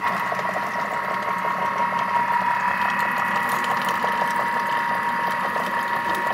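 Vorwerk Thermomix motor starting abruptly and running steadily with a high whine and a light, rapid ticking, its blade stirring a thick cream-cheese and horseradish dip with pomegranate seeds in the lidded bowl.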